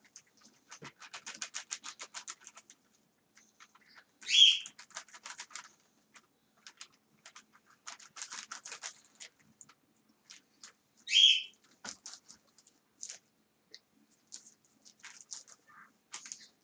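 A butter knife sawing through rolled tortilla pinwheels on a plate: several runs of rapid scraping strokes, about ten a second, with scattered ticks between them. Two short, loud, high-pitched chirps cut in, one about four seconds in and one about eleven seconds in.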